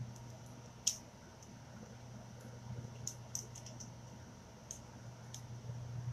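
Scattered light clicks and taps from handling small crafting tools and paint containers, over a steady low hum.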